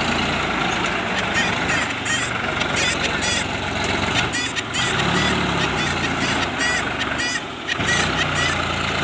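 Tractor diesel engine running steadily as it hauls a loaded soil trolley, its pitch rising and falling briefly about five seconds in. Over it comes a run of short, high chirps repeating every fraction of a second.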